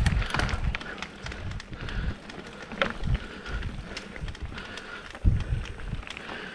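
Mountain bike rolling down a dirt forest trail: tyres running over packed earth, leaves and loose stones, with the frame rattling and clicking over bumps and wind rumbling on the microphone. A heavier jolt comes about five seconds in.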